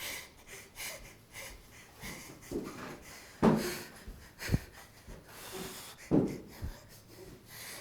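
A man breathing hard in a small room, a run of short breaths with three loud, sharp ones about three and a half, four and a half and six seconds in.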